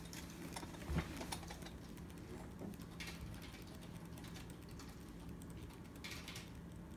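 Faint handling noise: scattered light clicks and rustling, with a knock about a second in and a short rustle near the end, over a steady low hum.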